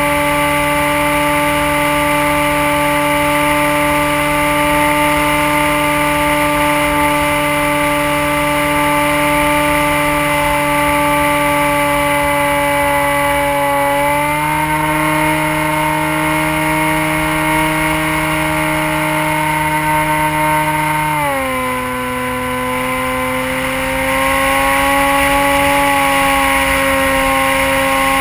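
Dynam Hawk Sky RC plane's electric motor and propeller whining steadily in flight, heard from on board with wind rush. The pitch steps up about halfway through, drops a few seconds later, then climbs slightly near the end as the throttle is moved.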